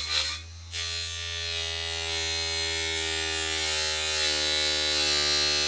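Homemade lollipop-stick table saw, a small electric motor spinning a blade cut from the bottom of a tin can, buzzing loudly as a lollipop stick is fed into the blade. The buzz starts about a second in after a couple of light knocks, drops slightly in pitch about four seconds in as the blade bites, and cuts off suddenly at the end.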